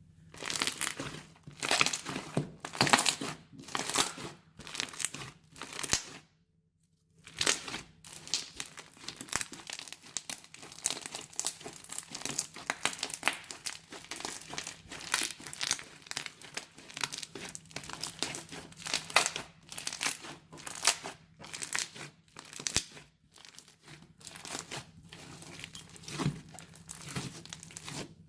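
Crunchy slime squeezed and worked by hand, giving a dense run of sharp crackles and pops. There is a brief silent break about six seconds in.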